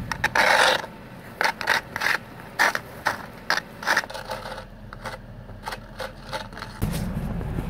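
Snow and frost being scraped off a car windshield with the rim of a Pringles-style crisps tube: a quick series of short scraping strokes, growing fainter about halfway through. A low steady rumble comes in near the end.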